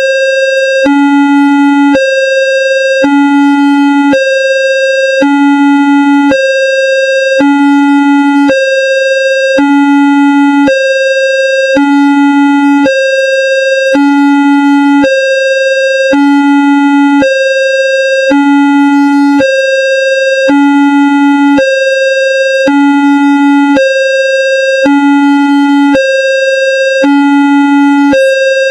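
Electronic railway level-crossing warning signal: two tones, a low one and one about an octave higher, alternating about once a second, with a faint click at each change.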